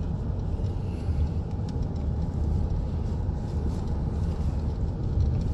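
Road and engine noise inside a moving vehicle's cabin: a steady low rumble.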